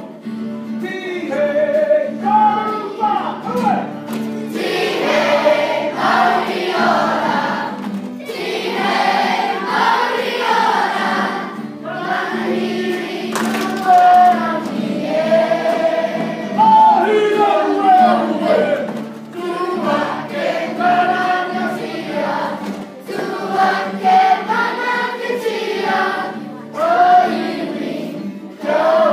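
A group of schoolchildren singing a Māori song together, loud and continuous.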